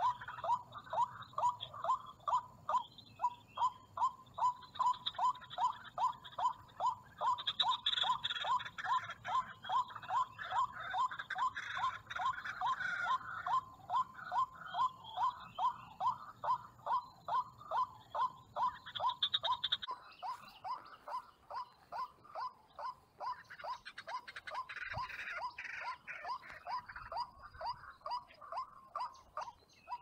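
Recorded lure call of the white-breasted waterhen (burung ruak, wak-wak) played through a phone's speaker: a monotonous call repeated about one and a half times a second. About 20 s in, a background hiss stops while the calls go on.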